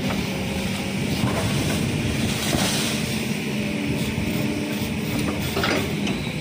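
Kobelco hydraulic excavator's diesel engine running steadily under load while its bucket pushes over an oil palm, with a couple of faint knocks as the trunk gives way.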